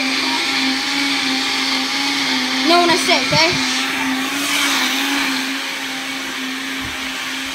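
Countertop blender running steadily with a constant motor whine, blending lemonade and mixed food items into a drink.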